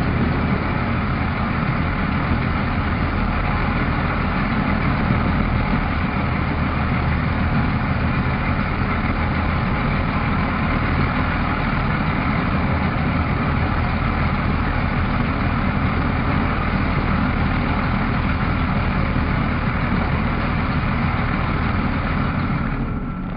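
Pitts S-2B's six-cylinder Lycoming engine and propeller running steadily at power in level flight, a dense, even drone. It fades away near the end.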